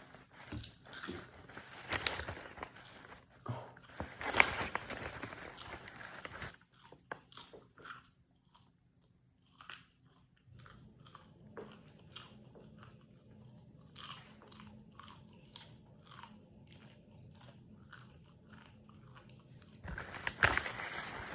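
A person chewing and crunching popcorn close to the microphone: a run of short, dry crunches, with a brief pause about halfway through before the chewing goes on more softly.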